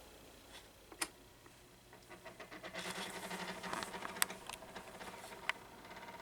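A single click about a second in, then a Galaxy 9-inch oscillating table fan's motor spinning up and running on low speed with a steady hum and a light, rapid rattle with occasional sharper clicks. The rattle is typical of the bad bearings of these 9-inch fans, though not bad on this one.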